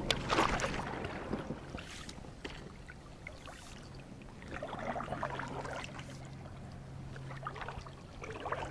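Kayak paddle strokes: the blade swishing and splashing through the water, loudest at the start, about five seconds in and near the end.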